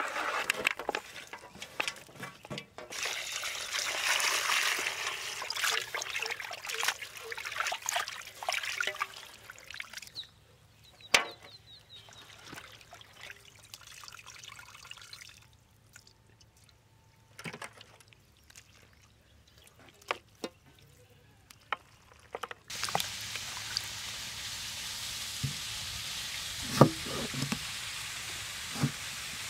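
Raw country chicken pieces being washed by hand in a steel bowl of water: splashing and trickling as the pieces are stirred, squeezed and lifted out, with scattered wet clicks. Near the end a cleaver chops on a wooden board, a couple of sharp knocks over a steady outdoor hiss.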